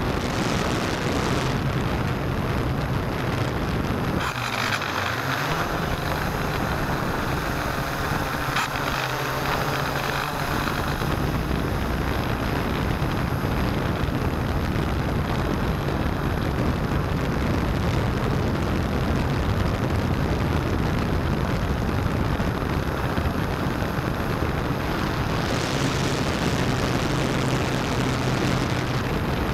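S650APM hexacopter's electric motors and propellers whirring steadily, picked up by the small camera riding on the craft. About four seconds in, the low hum drops away and the sound shifts higher for several seconds, then settles back to the steady whir.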